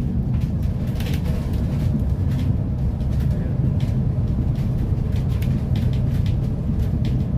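Double-decker bus running at road speed, heard from inside on the upper deck: a steady low engine and road rumble with short, irregular rattles and hiss on top.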